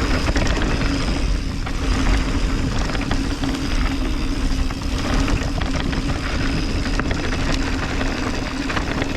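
Mountain bike descending a dirt trail: wind buffeting the microphone and tyre rumble, with short rattles over bumps and a steady buzz throughout.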